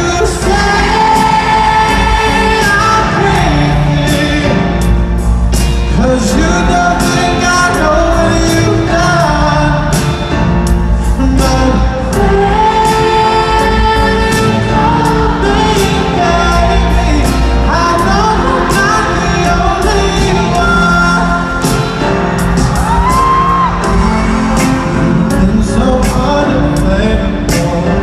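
Live pop ballad played by a band in an arena, recorded from among the audience: a lead vocal sings over drums, bass and keyboards with a steady beat, in a big echoing hall.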